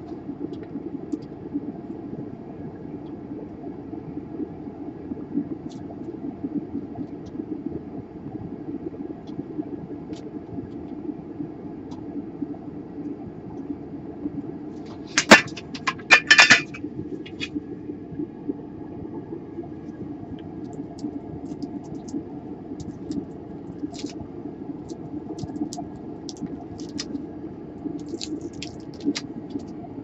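A steady low hum runs throughout, with a sharp metallic clatter about halfway through as the soldering iron is set back in its stand. Light taps and clicks of handling the laptop motherboard and tools follow near the end.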